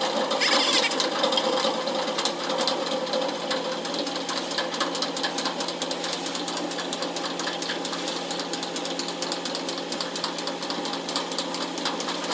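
Ship's diesel engine running steadily, a fast even knocking with a steady hum under it. A short high rising chirp about half a second in.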